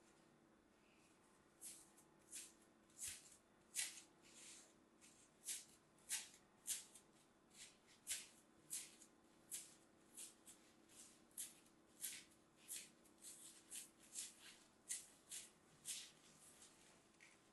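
Pre-cut green floral foam crushed and broken apart between the fingers, giving a run of crisp crunches, roughly one to two a second, that begins about two seconds in.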